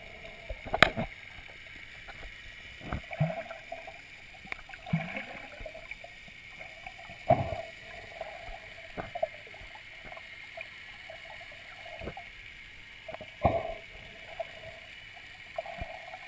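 Muffled underwater sound picked up by a submerged camera while snorkeling: irregular thumps and swishes of water movement every second or two over a steady faint background hum.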